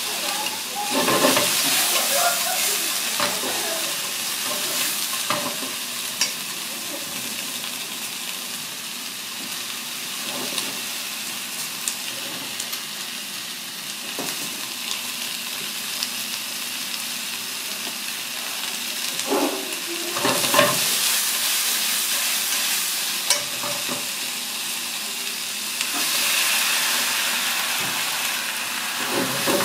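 Shredded cabbage and carrot sizzling in a frying pan as they are stir-fried with chopsticks and a spatula. The sizzle swells when the vegetables are turned, about a second in, around twenty seconds in and again near the end, with a few sharp clicks of the utensils against the pan.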